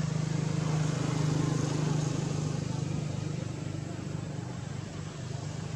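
A motor engine running steadily at idle, a low hum that eases slightly after the first couple of seconds.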